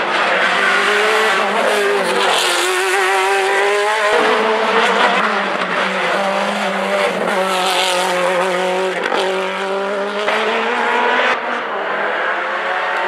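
Hill-climb race car engine run hard, its pitch climbing and then dropping sharply at upshifts about four and ten seconds in.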